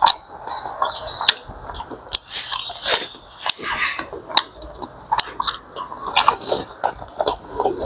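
A person chewing and biting a piece of calamari close to the microphone, with many irregular sharp mouth clicks.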